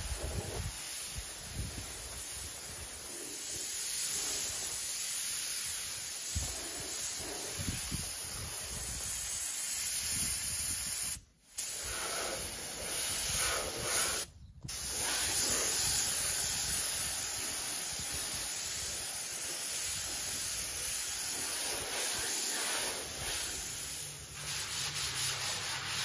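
Compressor-fed paint spray gun hissing steadily as water-based finish is sprayed, stopping twice briefly near the middle. In the last couple of seconds this gives way to a fine abrasive pad rubbing by hand over the painted wood.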